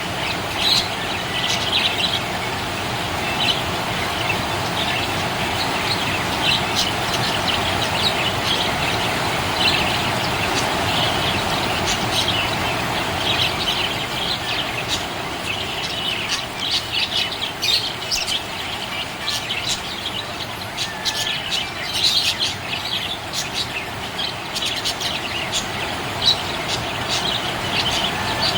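Budgerigars chirping and twittering in quick short calls, busier in the second half, over a steady background hiss.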